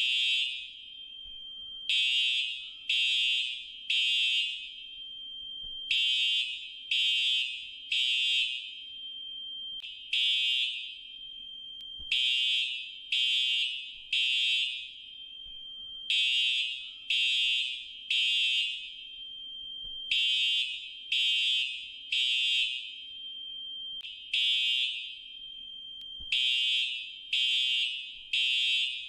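Fire alarm sounding high-pitched beeps in the temporal-three pattern: three beeps in a row, then a longer pause, repeating about every four seconds. This is the standard evacuation signal.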